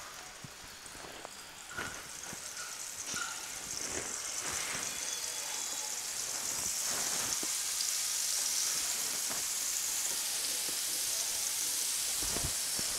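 Mustard-coated fish fillets frying in hot oil in a nonstick pan: a steady sizzle that grows louder as more fillets go in. A few light knocks come in the first four seconds.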